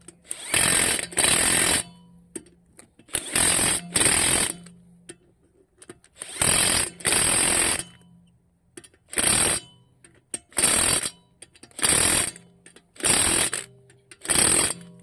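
Impact wrench hammering in short bursts, about eleven in all, the first few in quick pairs and the later ones single, as the wheel's lug bolts are run in and tightened.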